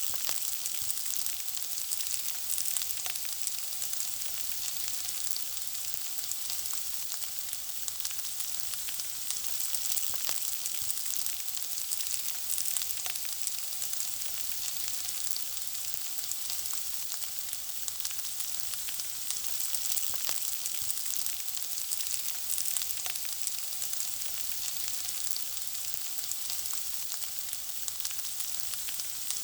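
Food frying in hot oil: a steady sizzle with dense fine crackling and spitting, even throughout.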